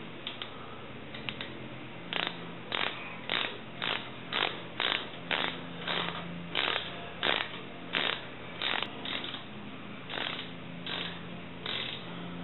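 Socket ratchet tightening bolts down on a car's front brake assembly, its pawl rasping in short bursts about twice a second with each back-swing of the handle.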